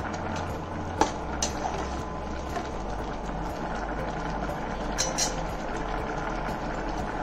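Pot of baby potatoes in spiced mustard water boiling hard, bubbling steadily. A metal spatula stirs and clinks against the pot about a second in and again about five seconds in.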